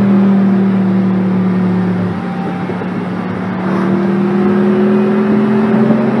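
Car engine running steadily at speed, heard from inside a car's cabin, with an engine note rising slowly in pitch through the second half as it accelerates.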